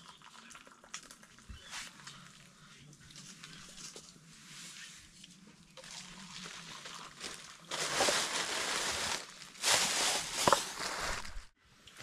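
Hot tea poured from a metal kettle into paper cups, a trickling splash into the cup, with two louder pours in the second half.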